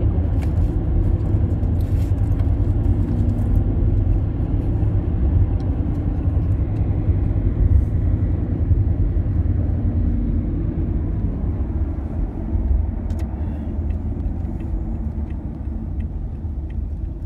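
Steady low rumble of road and engine noise heard from inside a moving taxi's cabin, easing slightly near the end.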